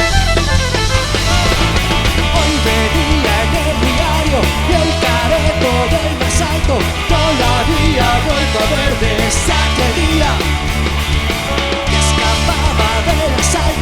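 A band playing an instrumental passage, with no singing: a steady drum and bass groove under a lead melody line that slides and bends in pitch.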